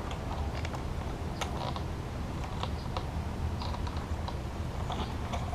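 Scattered light clicks and taps of a motorcycle clutch cable and its metal fittings being handled as it is threaded into place, over a low steady hum.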